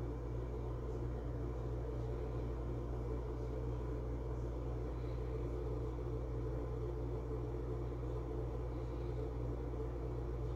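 A steady low hum with a few fixed tones over a faint hiss, unchanging throughout.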